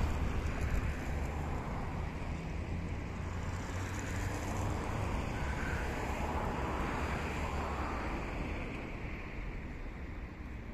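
Wind buffeting the microphone outdoors: a steady low rumble with a rushing hiss.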